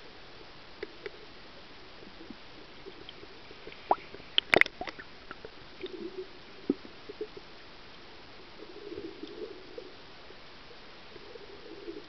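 Underwater sound picked up by a camera in its waterproof housing: a steady hiss with scattered faint clicks, a cluster of sharp knocks about four seconds in, and short low gurgles of surging water a few times later.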